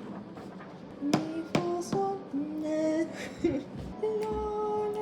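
A woman's voice singing unaccompanied, starting about a second in with held notes that step upward in pitch, with a few sharp clicks near the start of the singing.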